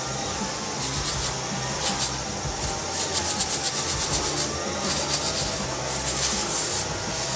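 Coffee beans being shaken in a handheld roaster over a stove flame: the beans swish and rattle in quick rhythmic bursts, densest in the middle. The roast is past first crack and not yet at second crack.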